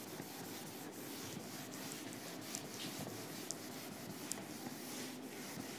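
Faint rubbing of a hand-held eraser wiping marker off a whiteboard, with a few small ticks.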